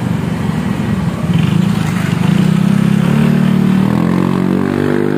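Honda PCX 160 scooter with a freshly fitted aftermarket racing exhaust, its single-cylinder engine running at low revs as it moves off, then the exhaust note climbing in pitch about three seconds in as it accelerates away.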